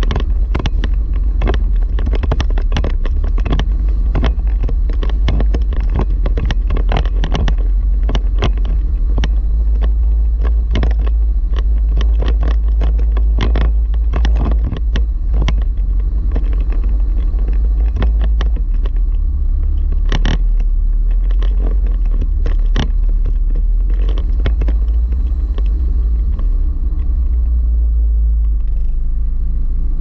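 Jeep 4x4 driving over a rough, rutted dirt road: a steady low rumble with frequent knocks and rattles as it jolts over the bumps and holes.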